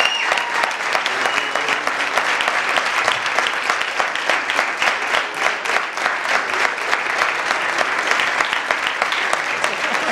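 Large seated audience applauding, a dense, steady clatter of many hands clapping at once.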